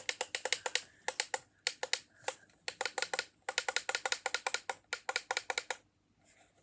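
Alarm clock's setting button pressed rapidly and repeatedly, a short click with each press at about eight a second, in several quick runs as the year is scrolled down; the clicks stop about six seconds in.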